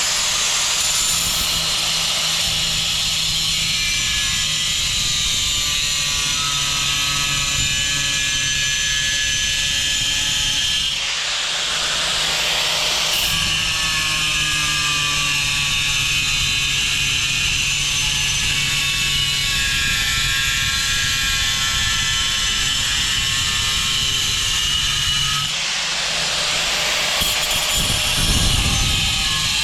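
Electric power tool with a cutting blade running continuously while trimming a tile, its motor pitch wavering as the blade is loaded. It falters briefly about a third of the way through and again near the end.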